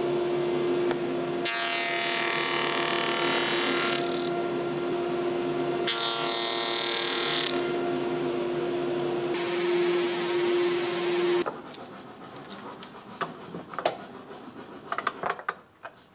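Table saw running with a steady hum, cutting through a thin strip of wood twice; each cut is louder and noisier for about two seconds. The saw sound stops abruptly about eleven seconds in, leaving scattered light taps and clicks.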